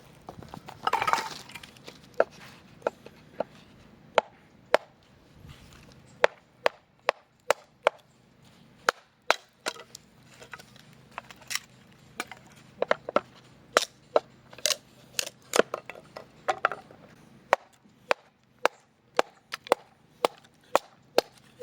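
Repeated sharp strikes on wood at an uneven pace of roughly one or two a second, some much louder than others, like chopping or hammering at a campsite, with a short rustle about a second in.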